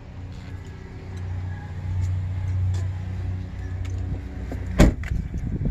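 A Ford Explorer Sport Trac's engine idling steadily, then a car door shutting with a single loud knock near the end.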